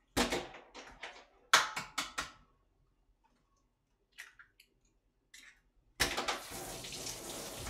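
Raw eggs being cracked against the rim of a bowl, a handful of sharp shell cracks in the first two seconds, then a few light clicks. About six seconds in, a steady rush of water starts suddenly from the kitchen sink tap.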